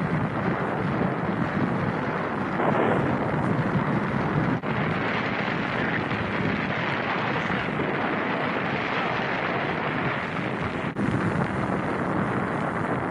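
Wind rushing over the camera microphone while skiing downhill: a steady, loud rush of noise that briefly drops out twice.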